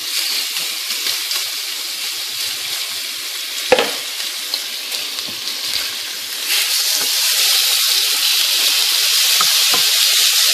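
Cubed raw chicken sizzling as it goes into hot olive oil in a nonstick skillet and is stirred with a wooden spoon. A single knock comes a little under four seconds in, and the sizzle grows louder about six and a half seconds in as more chicken hits the pan.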